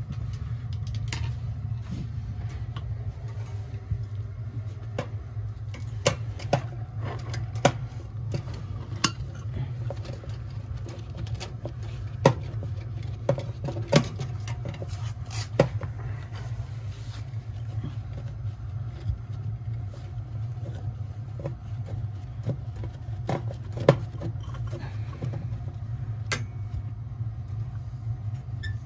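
Scattered sharp metal clicks and knocks from tools and sheet-metal parts being handled at a gas boiler's burner compartment, over a steady low hum.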